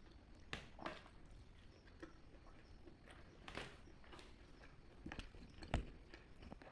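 A person eating close to the microphone: short, scattered bursts of chewing and mouth sounds, with one sharp click near the end.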